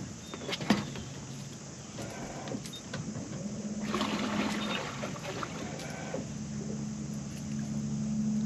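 Electric trolling motor humming steadily, starting about three seconds in, with a few sharp clicks near the start and a brief burst of noise around four seconds in.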